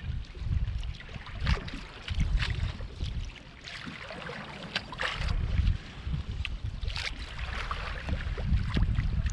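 Wind buffeting the microphone with a steady low rumble, and small waves slapping and splashing irregularly against a kayak hull on open sea.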